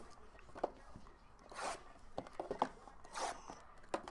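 Cardboard trading-card boxes being handled and moved on a table: scattered light knocks and clicks, with two or three short rubbing or scraping sounds.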